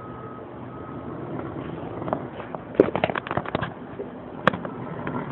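Snoring from someone asleep: a low rumbling breath that swells, then breaks into a rattly, crackling run about three seconds in, with one sharp click shortly after.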